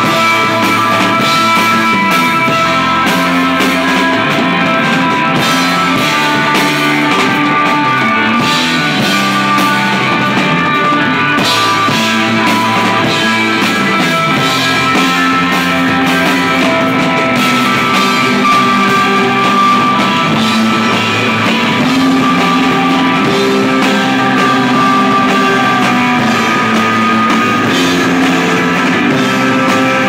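Desert rock band playing live at loud volume: electric guitar with long held notes over a drum kit.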